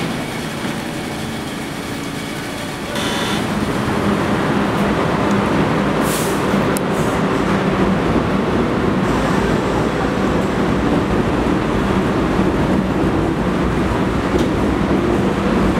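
R42 subway train at the platform starting off. Its running noise and a steady low motor hum grow louder from about three seconds in, with a short hiss of air about six seconds in.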